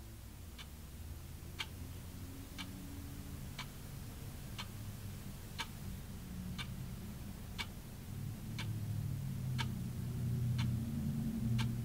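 Wall clock ticking, one sharp tick about every second. A low hum swells under the ticks in the last few seconds.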